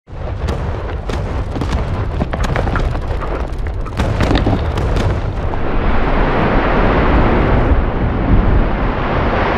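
Godzilla Earth monster sound effect: a loud, deep rumbling blast full of sharp crackles that begins suddenly, then swells into a louder rushing hiss over its second half.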